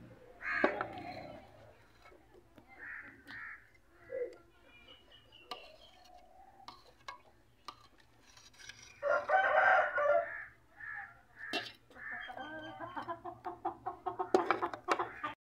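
A rooster crows once, about nine seconds in, and chickens cluck in quick short calls near the end. Sharp metal clinks come from a slotted spoon knocking against a metal cooking pot and a steel bowl.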